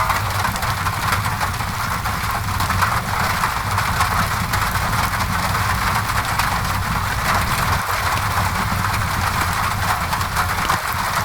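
Steady rain on a window mixed with a crackling wood fire: an even hiss of rain with many small crackles and pops over a low, steady rumble.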